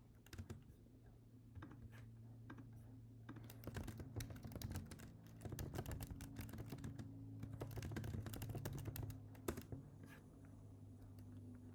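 Typing on a computer keyboard: a faint run of irregular key clicks with short pauses, over a steady low hum.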